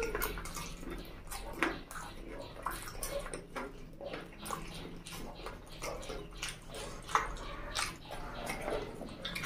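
Wet mouth sounds of eating chicken feet in curry: sucking, smacking and chewing, with many short squelches and clicks at an uneven pace.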